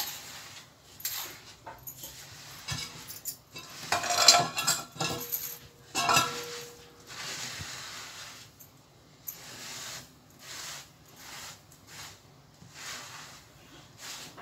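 Spilled grain being swept across a stone floor with a small hand brush: irregular scratchy brush strokes with the grain rattling and clicking. The strokes are loudest about four seconds in and again around six seconds, then go on more quietly.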